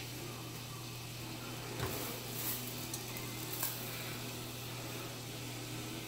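Steady hiss of pots cooking on the stovetop over a steady low hum, with a few light clicks about two and three and a half seconds in.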